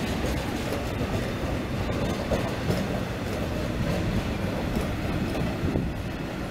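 Freight train of open box wagons rolling steadily past, a continuous low rumble of wagon wheels on the rails with faint clacks.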